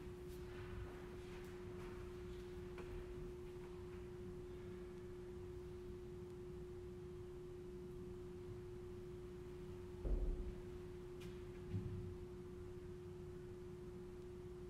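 A steady single-pitched tone holds throughout. Over it come a soft low knock about ten seconds in and a lighter one just before twelve seconds, from vessels being handled on the altar.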